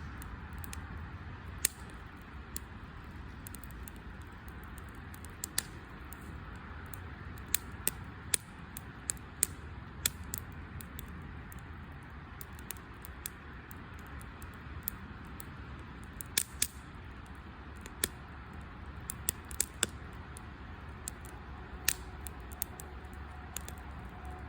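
Campfire burning, wood crackling with irregular sharp pops over a steady low hiss.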